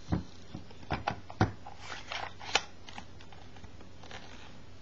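AA batteries being loaded into a Canon T90's battery compartment: a series of sharp plastic-and-metal clicks and knocks, the loudest about a second and a half in.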